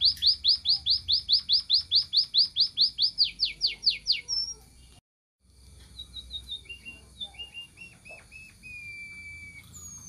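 White-headed munia singing: a fast run of about five down-slurred whistled notes a second, the notes dropping lower just before the sound cuts out briefly about halfway. After the break come softer, sparser notes and a long falling whistle.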